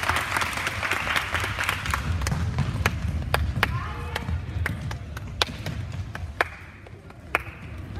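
Floorball play in a sports hall: many sharp, irregular clacks of sticks striking the plastic ball and each other, with players' voices calling out, echoing in the hall.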